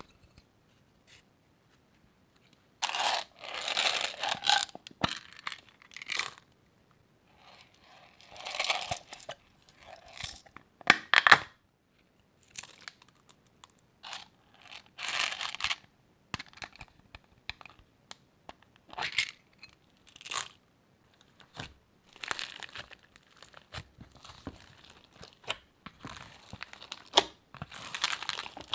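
Crunchy slime being worked by hand, crackling and crunching in irregular bursts with sharp little pops and short pauses between handfuls.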